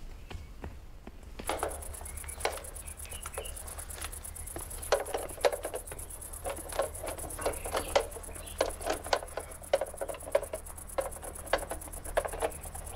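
Footsteps on a metal spiral staircase: irregular knocks and clanks, about one or two a second, as someone walks down. From about a second and a half in, a steady faint high whine and a low hum run underneath.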